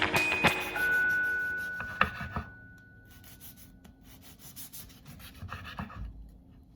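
A soft, intermittent rubbing rasp of banana bread being cut, faint, after the last notes of background music fade out in the first two seconds.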